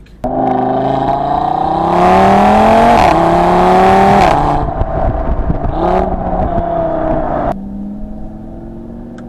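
A 2017 Audi TT RS's turbocharged five-cylinder engine pulling hard through its sports exhaust, its pitch climbing. About three seconds in the pitch drops sharply in an upshift, then climbs again. A little after four seconds the throttle eases, and at about seven and a half seconds the engine falls to a quieter steady run.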